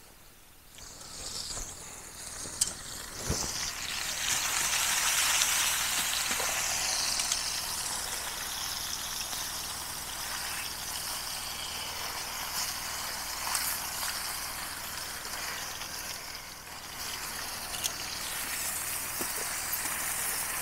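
Steak sizzling in a hot pan over a campfire. The sizzle starts about a second in, builds to its loudest within a few seconds and then settles to a steady hiss, with two sharp clicks about three seconds in.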